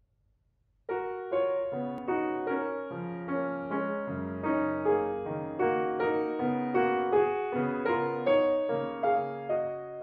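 Grand piano playing a solo piece, coming in with a chord about a second in, then a flowing line of sustained notes in a steady rhythm.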